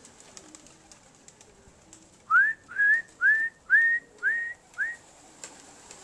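A person whistling six short rising notes in quick succession, about two a second, a whistle call to bring homing pigeons down into the loft.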